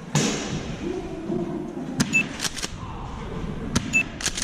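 Sharp clicks and pops of airsoft gunfire in two quick clusters, about two seconds in and again near the end, over low muffled rustling.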